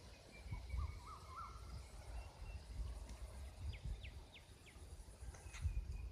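Wind buffeting the microphone with a low, uneven rumble, while small birds call: a few short rising chirps about a second in, and a quick run of falling whistles around four seconds in.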